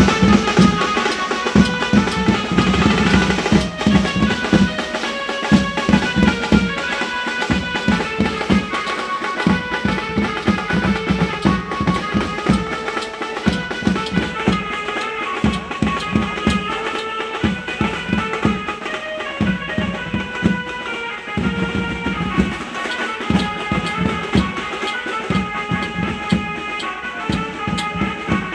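Traditional Indian music: steady hand-drum beats under a stepping melody line.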